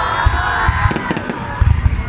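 Fireworks going off in rapid succession as deep thuds and crackles, over the noise of a large crowd of spectators.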